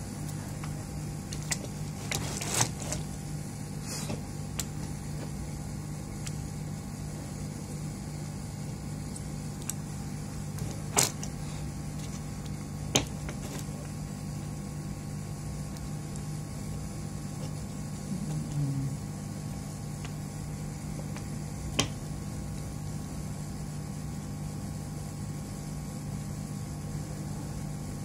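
Steady low electrical hum with a handful of sharp, light clicks and taps from a soldering iron and small parts being handled on a workbench.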